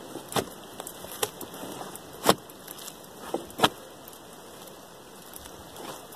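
Small axe chopping into the bark along the top of a felled log, splitting it so the bark can be peeled off in large sheets. A handful of sharp, separate chops in the first four seconds, then a pause.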